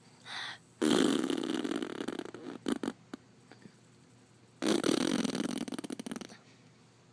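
Baby blowing raspberries: two long sputtering lip buzzes, one starting about a second in and the other about halfway through, with a few short sputters between them.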